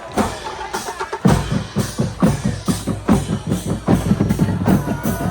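Drums playing a fast, steady beat of bass drum and snare, about four strokes a second, coming in strongly about a second in.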